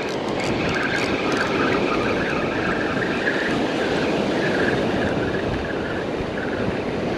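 A fishing reel being cranked to bring in a fish that has just taken the bait: a steady whirring over the wash of surf and wind, with a few light clicks in the first second or so.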